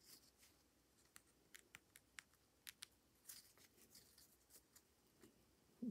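Faint ticks and soft scratchy rasps of a cross-stitch needle poking through stiff 14-count Aida cloth as the embroidery floss is drawn through.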